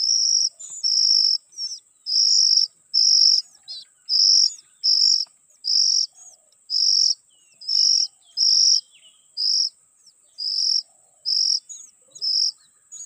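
Oriental magpie-robin (kacer) calling in a steady series of short, high, level notes, about one a second, with a faint thin high tone running under them.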